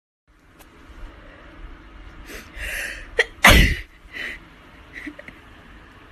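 A person sneezing once, sudden and loud, about three and a half seconds in, after a couple of sharp breaths in. Quieter breaths follow.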